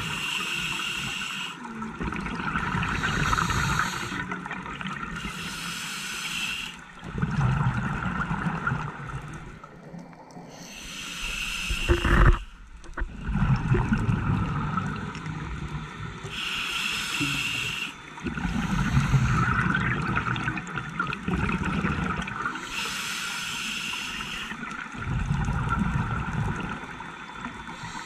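Scuba regulator breathing heard underwater: a hissing inhale through the demand valve, then a low bubbling exhale, repeating about every five to six seconds. A single sharp knock sounds about halfway through.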